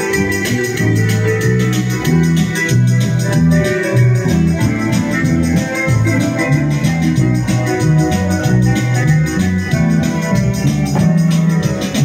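Live band playing an instrumental passage of a Russian pop song through PA speakers. A keyboard with an electric-organ sound carries the chords over a stepping bass line and a steady beat.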